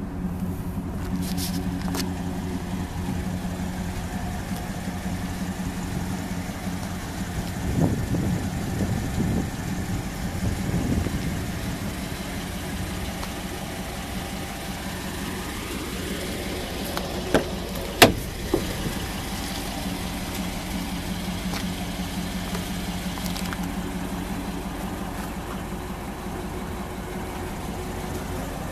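Dodge Ram 2500's V8 engine idling steadily. A few sharp clicks come past the middle, one much louder than the rest.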